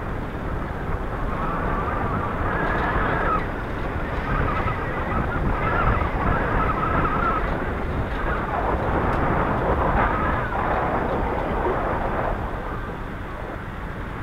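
Wind rumbling on the microphone of a camera carried on a moving bicycle, with street traffic in the background. A higher wavering sound comes and goes over it for several seconds in the first half and again a little past the middle.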